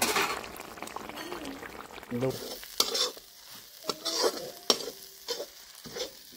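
Masala frying with a sizzle in an aluminium karahi. From about three seconds in, a flat metal spatula stirs it in a series of sharp scrapes against the pan.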